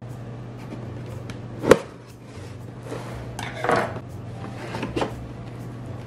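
A cardboard bakery box being handled and opened: a sharp tap, then a cardboard rustle and scrape as the lid is lifted, then another tap, over a steady low hum.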